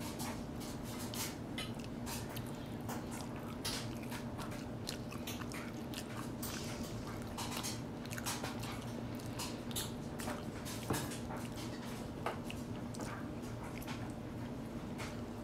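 A baby chewing and mouthing soft food, with many short wet smacking clicks from the lips and mouth.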